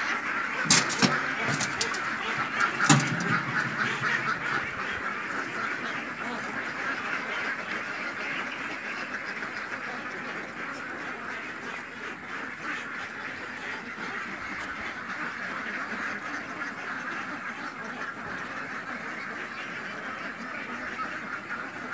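A flock of domestic ducks quacking together in a dense, continuous chatter, louder in the first few seconds and then steadier. A few sharp knocks sound within the first three seconds.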